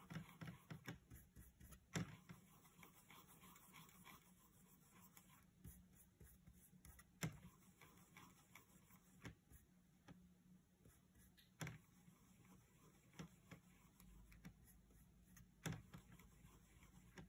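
Near silence with a few faint, scattered taps and soft rubbing from a paintbrush working paint in a plastic watercolour tray.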